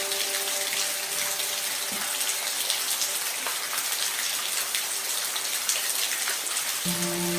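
Steady rain, a dense hiss with many single drops ticking through it. A soft, held music pad fades out in the first second and comes back near the end.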